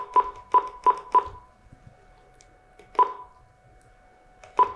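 Key-press beeps from a Furuno LH-5000 loud hailer control unit as its menu buttons are pressed. There are five short, quick beeps in the first second or so, then one single beep about three seconds in and another near the end.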